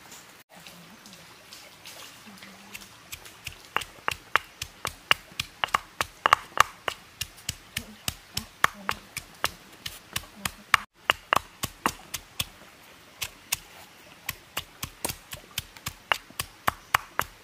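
Stone pestle pounding in a stone mortar: sharp, rhythmic knocks about three a second, faint at first and louder from about three seconds in.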